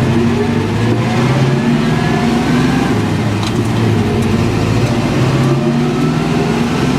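1963 Chevrolet C30 one-ton truck's engine pulling under acceleration, heard from inside the cab. A whine rises in pitch over the first couple of seconds and again about five seconds in.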